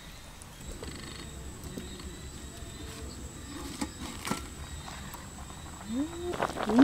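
Quiet cooking sounds with a few light clicks, then near the end a woman's short rising-and-falling "ooh", twice.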